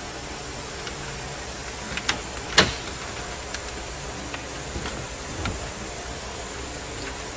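A few sharp clicks of plastic dashboard parts being handled, most likely the hazard switch and its electrical connector being unclipped from the trim plate, with the loudest snap about two and a half seconds in. A steady hiss runs underneath.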